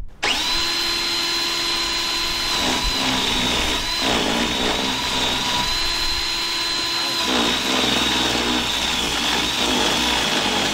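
Cordless drill spinning a Power Plucker rubber-finger chicken-plucking attachment at full speed, a steady motor whine. The pitch sags briefly a few times as a scalded chicken is pressed into the spinning fingers to strip its feathers.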